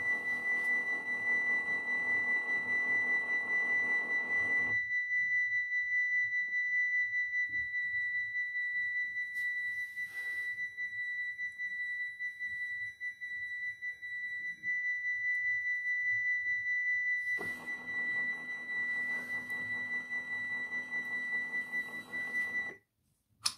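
Model Dutch level crossing's electronic warning bell sounding as a steady high-pitched tone, with the barrier motors whirring as the two booms lower during the first five seconds and again as they rise near the end. Bell and motors cut off together just before the end, followed by a small click.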